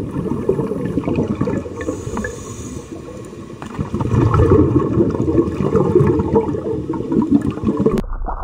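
Underwater sound of a scuba diver's breathing: low rushing and bubbling of exhaled air from the regulator, easing into a quieter hissing inhale about two seconds in, then bubbling again. It cuts off sharply near the end.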